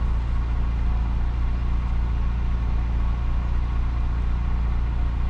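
Car engine running steadily: an even low hum with no change in pitch.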